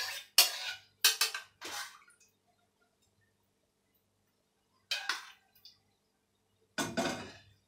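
Spoon clinking against a pan and dishes while a sauce is stirred and seasoned. A few sharp clinks come in the first two seconds, then a pause, then more clinks about five seconds and seven seconds in.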